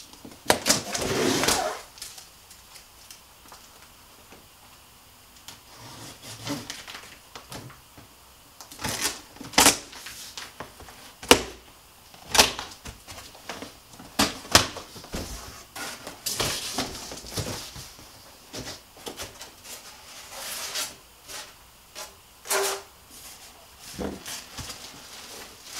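A large cardboard shipping box being unpacked: plastic strapping bands cut and pulled off, cardboard flaps opened and packing rustled. Irregular sharp snaps and scrapes with quiet gaps, and two longer rustling stretches, one about a second in and one a little past halfway.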